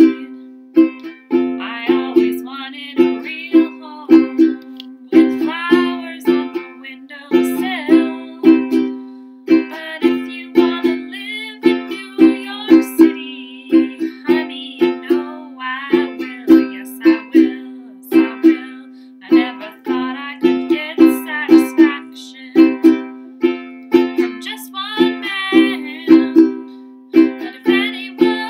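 Ukulele strummed in a steady, regular rhythm, with a woman singing along to it.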